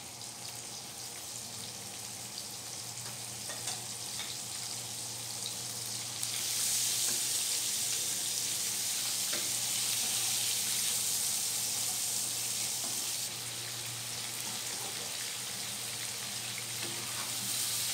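Peeled shrimp sizzling in melted margarine in a nonstick frying pan, stirred now and then with a spatula, a brief sauté so the shrimp don't turn watery. The sizzle grows louder about six seconds in and eases slightly after about thirteen seconds.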